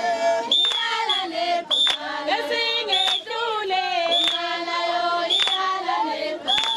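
A group of young women singing a Zulu traditional song together, with hand claps on the beat. A short, high-pitched tone sounds about every second.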